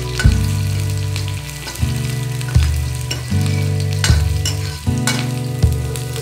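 Onions and green chillies sizzling and crackling in hot oil in a kadai as a ladle stirs them. Background music with low notes struck about once a second plays underneath.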